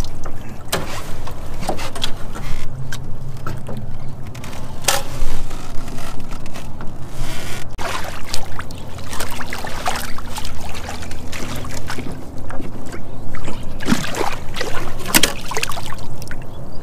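Water splashing and sloshing around wire fish baskets of live catfish hanging against a boat's side, with scattered sharp splashes and knocks over a steady low hum.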